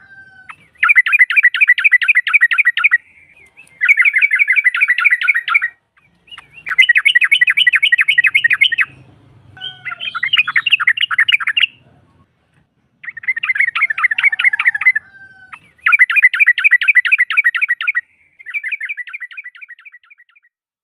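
Sooty-headed bulbul (trucukan) chattering in fast trilled bursts of about two seconds each, seven in a row with short pauses between them. It is a female bulbul's call, played as a lure to draw other bulbuls in to answer.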